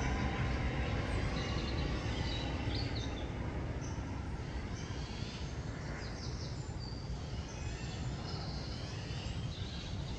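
Wild birds chirping and singing in short high phrases over a low, steady rumble of outdoor background noise.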